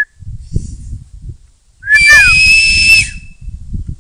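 A loud finger whistle, held steady for about a second, starting about two seconds in with a short up-and-down flick in pitch and a breathy hiss.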